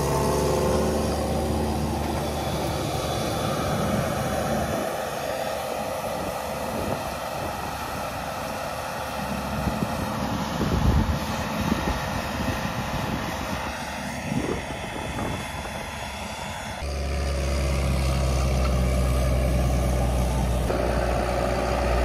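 Tractor engine running steadily while pulling a seed drill. For several seconds in the middle the deep engine hum drops away, leaving a rougher noise, and then it returns.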